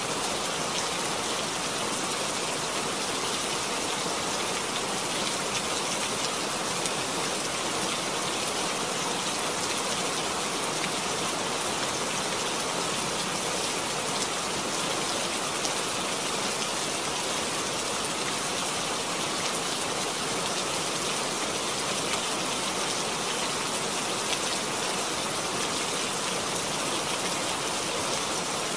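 Steady rain falling, an even hiss of many small drops that holds at the same level throughout.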